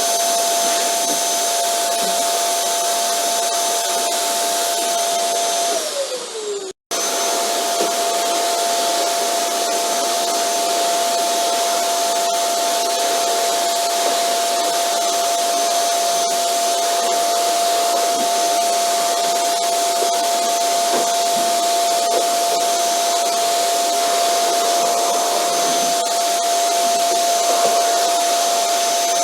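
Vacuum cleaner motor running with a steady airy roar and a high whine. About six seconds in the whine drops in pitch as if winding down, there is a brief silent gap, and it is back at full speed at once.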